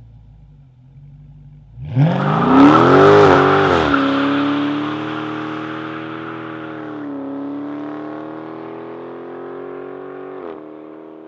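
Dodge Charger R/T Scat Pack's naturally aspirated 6.4-litre Hemi V8 idling with a low burble, then launching hard about two seconds in, its revs climbing in two quick pulls. The exhaust note then carries on, fading as the car pulls away down the road, and its pitch drops suddenly near the end.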